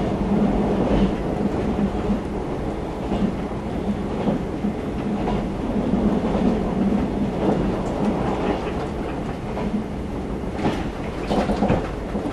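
Running noise of a JR 381 series limited-express electric train, heard from inside the carriage: a steady rumble of wheels on rails, with a few sharper clicks near the end.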